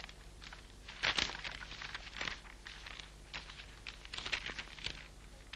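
Faint rustling and soft knocks of a paper file being handled and its pages turned, a few scattered times.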